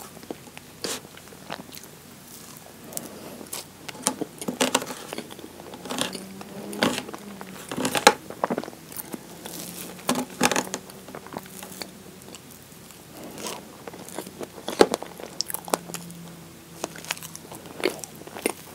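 Close-miked eating of strawberry shortcake: wet chewing and lip smacks on soft sponge and whipped cream, with irregular sharp clicks and scrapes as a metal fork cuts into the cake against a plastic tray.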